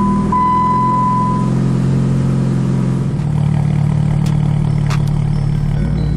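Chrysler PT Cruiser engine idling steadily just after start-up, with its intake manifold newly reinstalled. A steady high-pitched tone sounds over it for about the first second and a half. Partway through, the idle is heard from near the exhaust tip and its note changes.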